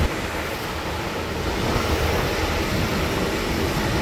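Steady rumbling machinery noise of a forklift's engine running as it loads bundled lumber onto a flatbed trailer.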